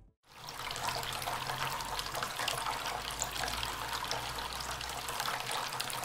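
Small tabletop fountain running: a thin stream of water falling from its tap-shaped spout into a shallow basin, a steady splashing trickle that begins a moment in. A faint low hum sits underneath.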